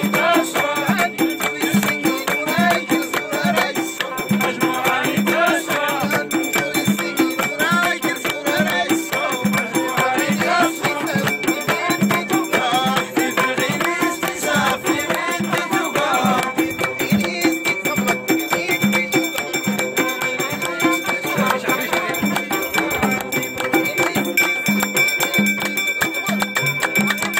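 Moroccan Amazigh folk music: a hand-beaten frame drum keeps a steady beat under a plucked loutar lute, with a man singing, mostly in the first half.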